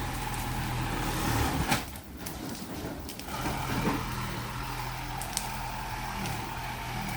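An engine running steadily, easing off briefly about two seconds in, with a few sharp knocks over it.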